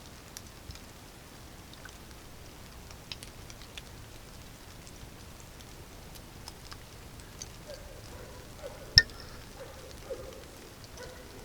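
Rain dripping: scattered single drops tapping over a faint steady hiss, with one loud, sharp drop about nine seconds in.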